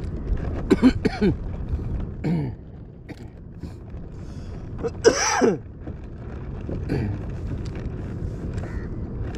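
A man's short throat-clearing grunts and falling exclamations, four of them with the loudest about five seconds in, over a steady low rumble.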